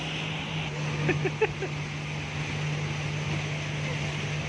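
Motorboat engine running at a steady hum, with a hiss of wind and water over it.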